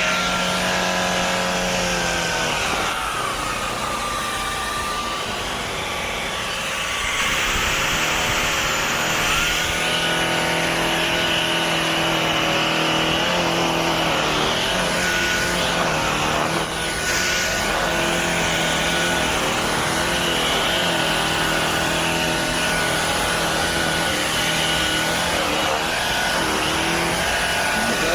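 Shark cordless stick vacuum running, with a steady high motor whine over a shifting lower hum as it is worked.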